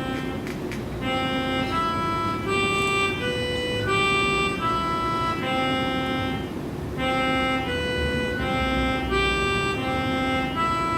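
Slow instrumental music of held, organ-like keyboard notes and chords. The notes change about every half second to a second, with brief pauses about a second in and near the middle.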